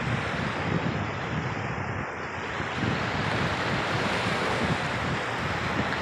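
Small Gulf of Mexico waves washing up on a sandy beach, with wind buffeting the microphone. The wash swells a little around the middle.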